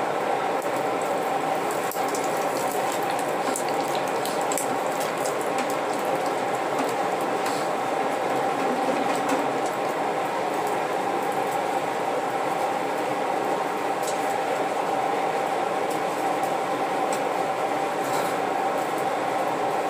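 Steady whir of the air blower driving a brick forge's fire, with scattered crackles from the burning fuel, a few seconds in and again near the end.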